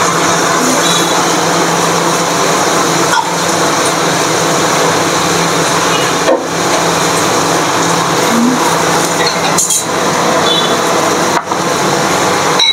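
Steady, loud street traffic noise, with a low engine hum underneath.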